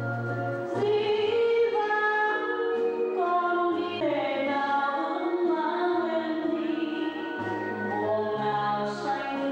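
Music with sung voices holding long melodic notes over a slow bass line.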